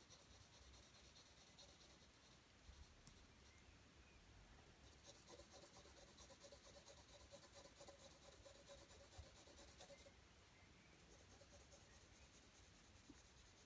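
Faint scratching of a graphite pencil on drawing paper in rapid back-and-forth shading strokes, busiest from about five to ten seconds in.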